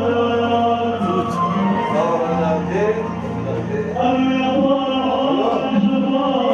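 Arabic wedding music with singing: a voice over steady held notes, playing continuously.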